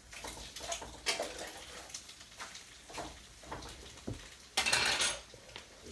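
Kitchen handling sounds: dishes and utensils knocking and clinking, with a short loud hissing burst a little after four and a half seconds in.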